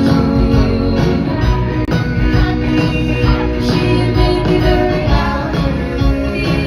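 A live pop-rock band playing a song with voices singing, over a steady beat.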